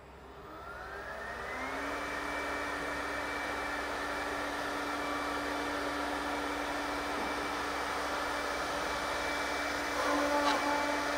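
Spindle motors of a CNC oval mortising machine spinning up with a rising whine over the first two seconds, then running at a steady high whine. About ten seconds in, the sound grows louder and changes as the cutters come down into the wooden rails.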